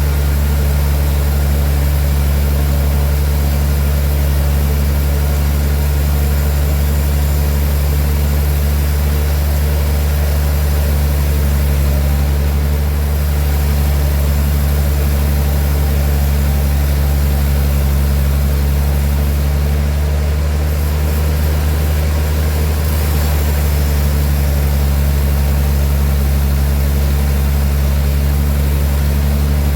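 A large engine running steadily at one constant speed, a loud even low drone that stays unchanged throughout.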